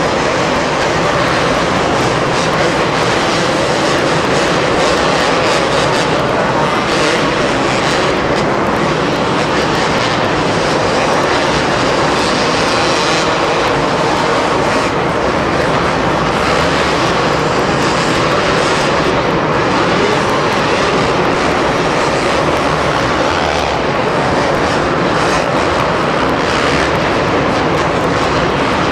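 Two-stroke motocross motorcycles revving hard as they ride the track, a continuous loud engine noise with no let-up.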